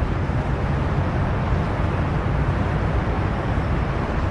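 Steady low rumble of city traffic with a broad, even hiss, no distinct events.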